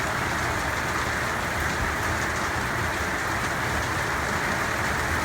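Heavy rain from a thunderstorm, falling steadily with an even hiss.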